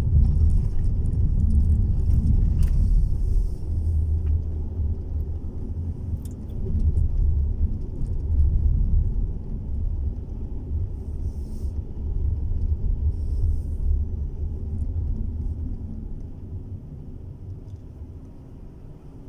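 Low rumble of a car's engine and tyres heard from inside the cabin while driving through city streets. It rises and falls with the driving and dies down near the end as the car slows in traffic.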